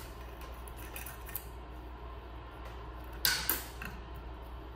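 Armature wire being pulled, bent and wrapped around a sculpture armature's post: light scraping and clicking as the wire moves, with a louder rasping scrape a little over three seconds in, over a low steady hum.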